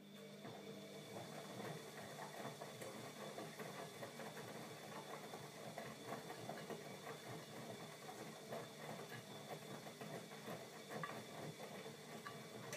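Bosch Maxx 40 WFC2445 washing machine's motor turning the drum: a steady hum with a faint high whine and many small clicks and rattles. It starts with a click and stops about twelve seconds later, near the end.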